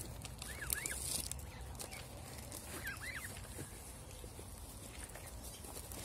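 Goose goslings peeping: a few short high peeps, each rising and falling in pitch, in a small cluster about a second in and again about three seconds in, with a few light clicks.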